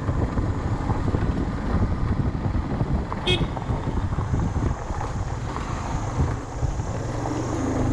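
Motorcycle riding over a rough gravel trail: the engine runs under a dense, choppy low rumble of wind buffeting the microphone. A short high-pitched beep comes about three seconds in.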